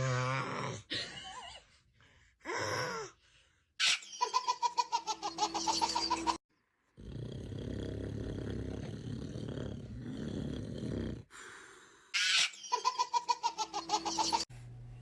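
A baby giggling in quick rhythmic bursts, then a man's long snore lasting about four seconds, then the baby giggling again.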